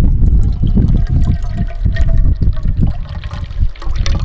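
Water poured in a trickling stream from a soft plastic water bottle into a metal camp cooking pot, filling it for boiling. A strong low rumble runs underneath.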